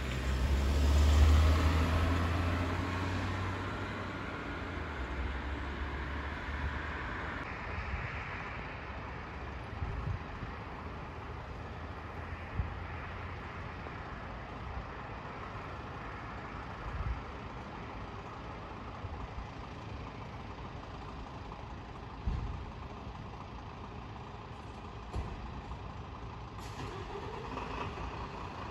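A road vehicle drives past close by, its engine and tyre noise swelling to a peak about a second in and fading away over the next few seconds. After that only a low steady background of distant traffic remains, with a few short soft thumps.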